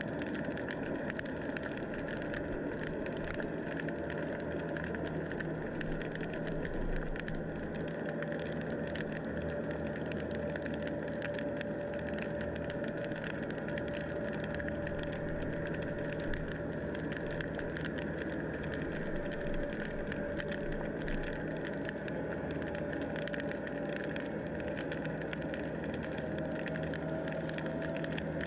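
Steady motor hum heard underwater, with a held whining tone that rises slightly near the end.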